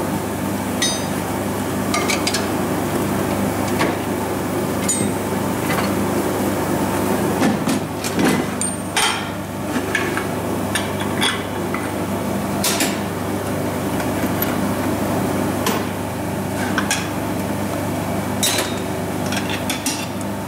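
Irregular sharp metallic clinks and knocks of tools and torque converter parts being handled, over a steady machine hum.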